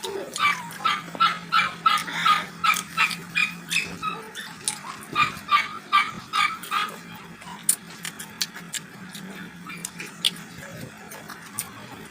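A small dog barking in a fast, even run, about three short yaps a second, which dies away after about seven seconds. A steady low hum lies underneath.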